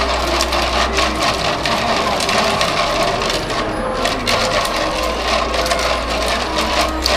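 Large freshly 3D-printed PLA gear bearing turned by hand, its plastic gear teeth clicking and clattering in a dense rattle as they roll. Short strands and splinters of PLA left from printing snap off as the gears turn.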